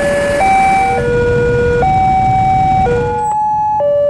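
Electronic railway level-crossing alarm: a sequence of steady tones that step up and down between a few pitches every half second to a second, over a low traffic rumble.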